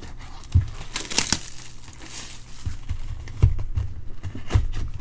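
Christmas wrapping paper being torn and crumpled off a cardboard box, with sharp tearing about a second in and a few dull bumps as the box is handled.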